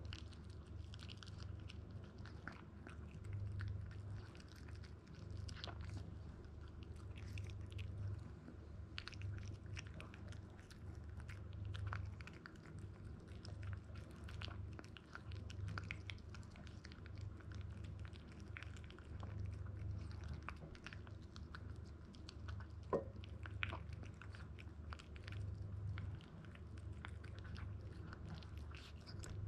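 Toy poodle puppy chewing and crunching dry kibble from a glass bowl: irregular crisp crunches and clicks throughout, with one sharper click about three-quarters of the way through. A low steady hum runs underneath.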